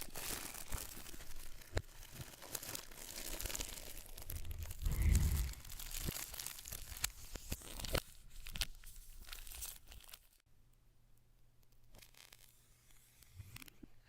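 Product packaging being torn open and handled: rustling, tearing and crinkling with sharp clicks, and a low thump about five seconds in. The handling dies down about ten seconds in, leaving only faint occasional sounds.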